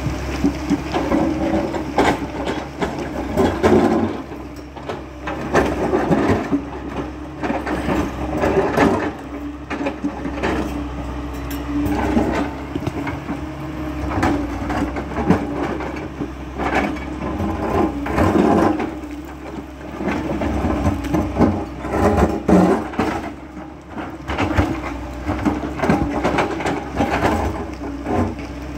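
Tracked excavator's diesel engine running steadily under load as the bucket digs and scrapes at a rock face, with irregular cracks, knocks and clatter of rock and rubble breaking loose.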